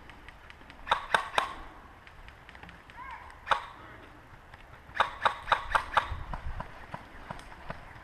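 Airsoft guns firing single shots in quick runs: three snaps about a second in, one alone near the middle, then a rapid string of five or six shortly after, with fainter shots following.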